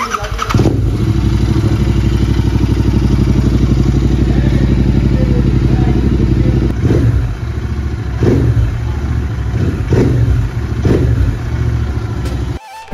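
Royal Enfield Continental GT 650's 648 cc parallel-twin engine idling steadily through newly fitted aftermarket Guru Sewak silencers, with a deep bass note. In the second half the throttle is blipped four times in short rising revs.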